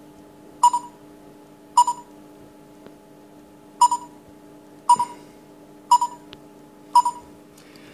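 Six short electronic beeps at irregular intervals, the smartphone's touch tones as buttons in the app are tapped, over a faint steady hum.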